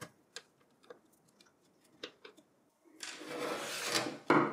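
A few light clicks of a screwdriver and screws at a steel drive cage, then about a second of scraping as a 2.5-inch Seagate laptop hard drive is slid out of the cage, ending in a short, louder knock.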